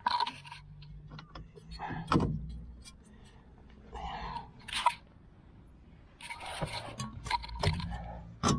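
Scattered clicks, light metal knocks and rustling from hands and tools working on a car's front steering and suspension, with a sharp knock near the end.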